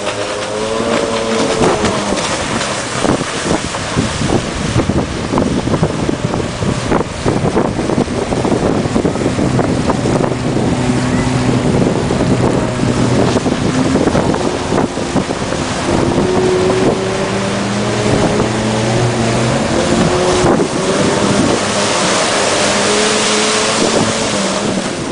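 Yamaha jet ski engine running at speed, its pitch rising and falling as the rider throttles through turns, with wind buffeting the microphone. Near the end the hiss of spray grows louder as the craft passes close.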